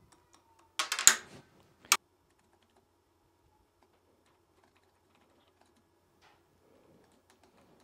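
Small sharp clicks of a neodymium disc magnet snapping against the electromagnet's core and the fingertip as it is held under the coil: a quick rattle of clicks about a second in and one sharp click just before two seconds, then only faint ticks. The magnet jumps to the electromagnet instead of levitating.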